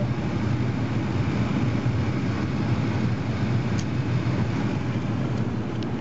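Carrier WeatherMaker 8000 80,000 BTU gas furnace running with its four burners lit: a steady rushing noise over a low hum.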